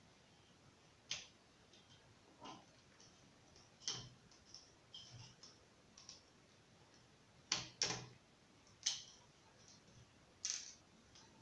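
Irregular small clicks and taps of hands working on a laptop during a hard drive swap. There are about ten of them, unevenly spaced, with a sharp pair of clicks near the middle.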